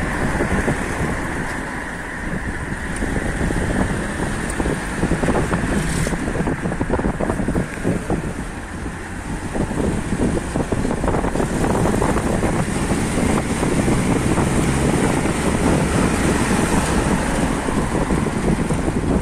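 Wind buffeting the microphone over the steady running of car engines in a slow-moving column of cars.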